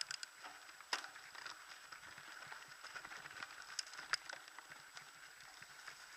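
Mountain bike rolling downhill over a grass track, heard through the rider's action camera: faint tyre noise with scattered rattles and clicks from the bike, and sharp knocks about a second in and near four seconds in as it goes over bumps.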